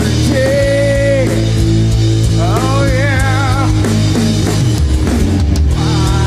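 Rock band playing live: a male singer holds a long note, then a wavering one with vibrato about two and a half seconds in, over guitar and drums.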